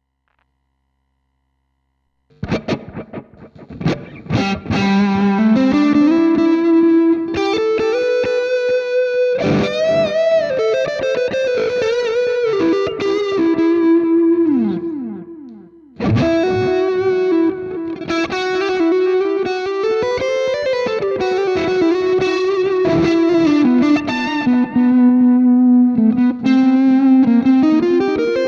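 Fernandes electric guitar through a Hotone Ampero One amp-modelling multi-effects unit, playing an overdriven lead melody of long sustained notes with string bends and vibrato. It comes in after about two seconds of silence, dies away briefly about halfway, then starts again.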